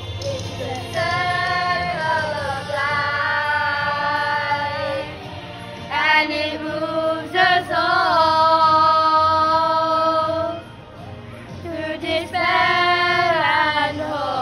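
A group of children singing together, holding long notes in three phrases with short breaks between them.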